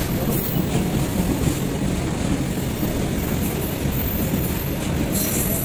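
Freight train of covered wagons rolling past on the rails: a steady heavy rumble of wagon wheels on track.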